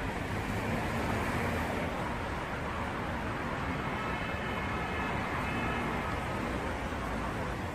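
City street traffic noise: a steady wash of passing cars, with a faint high whine through the middle.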